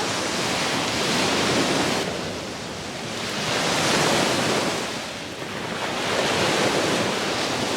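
Sea waves washing onto a beach: a steady rush of surf that swells and falls back roughly every two to three seconds, with wind blowing on the microphone.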